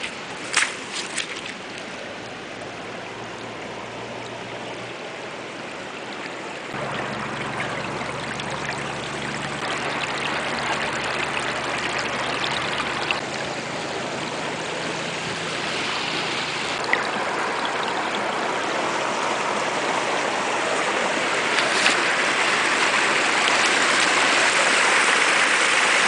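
Small stream of landfill runoff water rushing and trickling over rocks, growing steadily louder as the water pouring from a culvert pipe comes closer.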